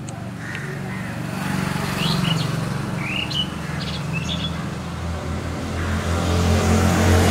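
Outdoor street ambience: a motor vehicle's engine runs with a steady low hum that grows louder toward the end, while birds chirp in short calls over it in the first half.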